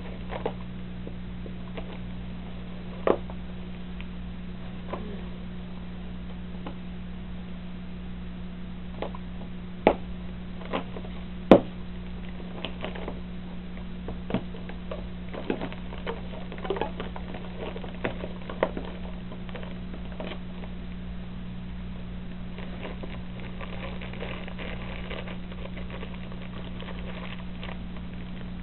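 A steady low electrical hum with scattered sharp clicks and taps, the loudest about eleven and a half seconds in, and a faint crackle near the end.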